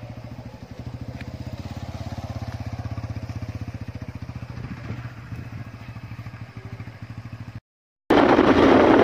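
An engine idling with a rapid, even pulse. Near the end, after a sudden cut, loud wind rushes over the microphone on a moving vehicle.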